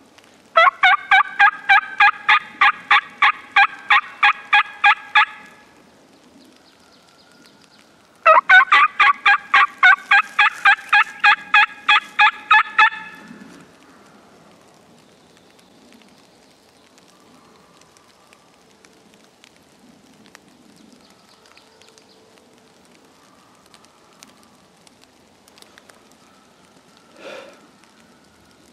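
Turkey yelping: two long series of loud, evenly spaced yelps, about three a second and some fifteen notes each, the second series starting a few seconds after the first ends.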